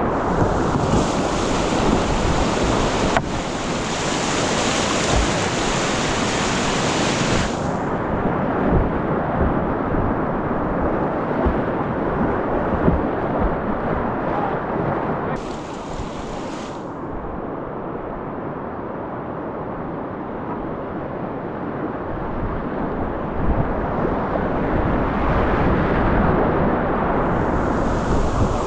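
Whitewater rapids rushing around a kayak as it runs a Grade 3 river gorge, a steady loud roar of water. It is loudest in the first seven seconds, eases in the middle and builds again near the end.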